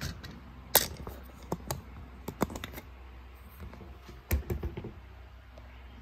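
A run of irregular sharp clicks and knocks from hands handling hard equipment, the loudest about a second in and about four seconds in, over a low steady hum.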